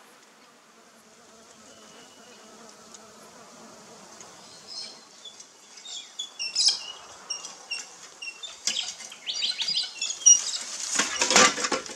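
Bees buzzing faintly, then small birds chirping in short, high, repeated calls from about four seconds in. Near the end comes a loud burst of rustling and crackling from cut branches being handled.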